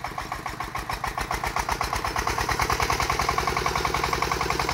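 Single-cylinder diesel engine of a công nông tractor-truck running with a fast, even putter, growing louder over the first two or three seconds as it is throttled up, then holding steady.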